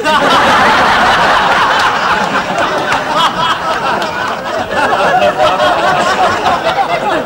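Studio audience laughing loudly at a punchline: a crowd of many voices that breaks out suddenly and keeps going, easing slightly near the end.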